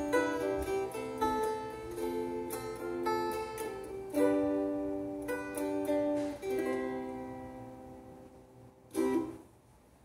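Handmade canjolele, a ukulele neck and tuning on a metal film-canister body, played as a short run of strummed chords and picked notes. The last chord rings out and fades about seven seconds in, followed by one brief strum near the end.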